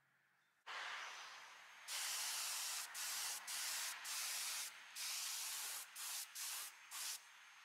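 Compressed-air spray gun hissing as it sprays a coating: a softer hiss first, then from about two seconds in a run of short loud bursts, seven or eight trigger pulls with brief gaps between them.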